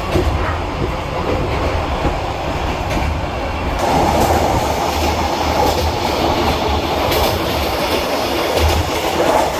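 Vietnamese sleeper train running along the line: a steady rumble of the carriages with occasional clacks of the wheels over the rail joints. The noise thickens slightly about four seconds in.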